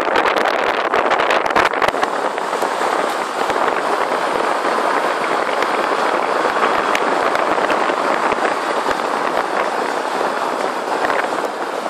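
A car driving along a paved road: steady road and wind noise, with many small clicks and crackles that are thickest in the first couple of seconds.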